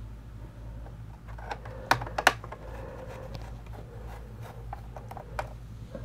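Scattered light clicks and taps of a small screwdriver and screws on a laptop's metal keyboard shield. Two sharper clicks come about two seconds in.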